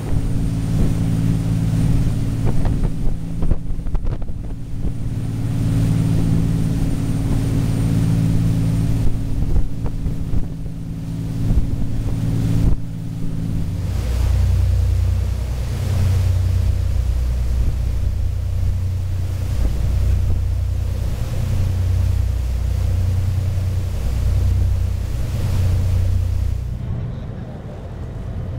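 Ferry engines droning steadily, with wind buffeting the microphone. About halfway through, the drone drops to a deeper tone that swells and fades slowly.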